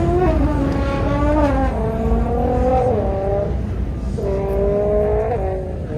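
Street cars cruising with a loud, steady low engine rumble. Over it a melody of held notes steps up and down, pausing briefly about four seconds in.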